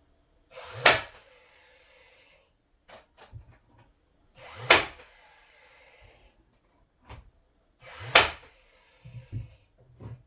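Three sharp knocks about three and a half seconds apart, each trailing off in a rattle that lasts about a second and a half.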